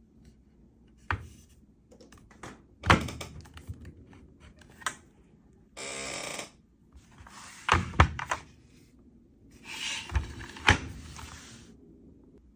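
A 3D-printed plastic machinist's tool box being handled: a series of separate knocks and thunks, with a short sliding scrape about six seconds in and a longer one around ten to eleven seconds in.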